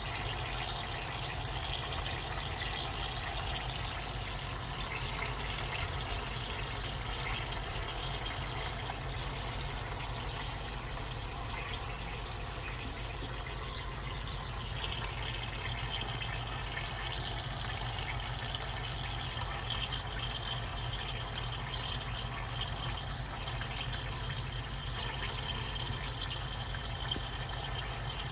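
Dry ice sublimating, a steady watery bubbling hiss with a few faint clicks scattered through it.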